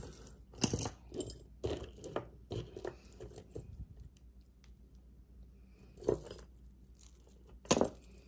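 Small metal costume-jewelry pieces clinking together as they are picked up and sorted: a quick run of light clicks over the first few seconds, a pause, then two sharper clinks near the end.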